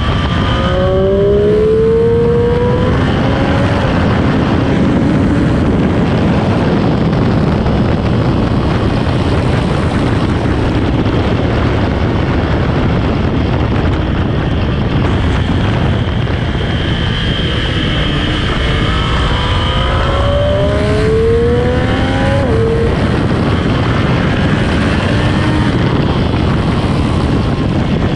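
Sport motorcycle engine on a stock exhaust, ridden hard on track under heavy wind rush. Twice, about a second in and again after about nineteen seconds, it accelerates through several gears, its pitch climbing in short steps.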